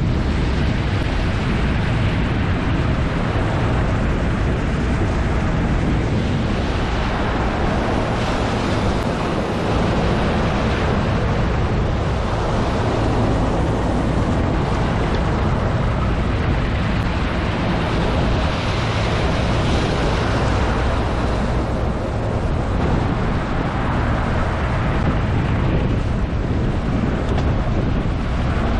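2018 Nitro Z20 bass boat underway through choppy water: the outboard motor runs steadily under a constant rush of water and wind buffeting the microphone.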